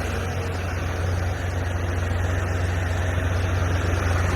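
Tractor diesel engine running steadily, a constant low drone with no change in speed.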